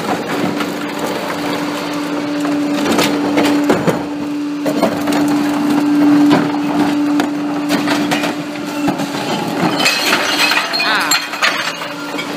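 Recyclables clattering and clinking as blue recycling carts are tipped by hand into the rear hopper of a Pak-Mor rear-loading recycling truck. Under it is a steady hum from the truck that cuts off about nine seconds in.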